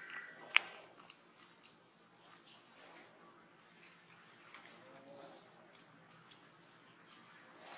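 Steady chorus of insects, heard as two constant high-pitched buzzing tones, with a single sharp click about half a second in.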